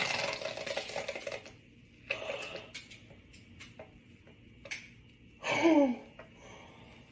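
A woman's breathy gasps of shock, the first one long, and a short groan that falls in pitch near the end, with scattered small clicks between them.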